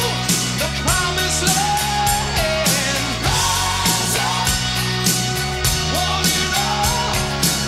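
Hard rock song: a lead vocal sung over electric guitars, bass and a steady drum beat.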